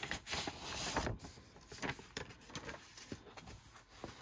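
Paper envelope rustling and crinkling as a sheet of stickers is slid out of it, loudest in the first second, then fainter handling rustles.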